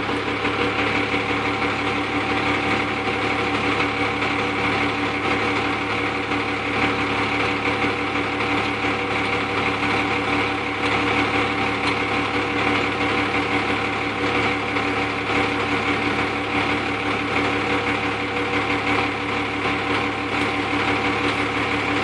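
Semi truck's Caterpillar diesel engine idling steadily, which the owner puts down to bad injectors.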